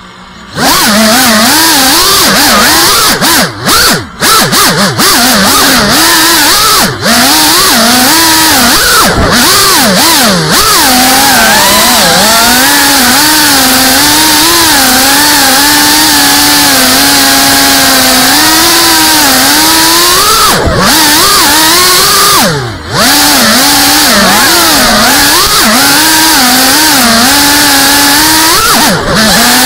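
FPV quadcopter's brushless motors whining loudly, the pitch wavering up and down constantly as throttle changes, on a quad flying with an unstable PID tune. The whine drops away briefly a few times.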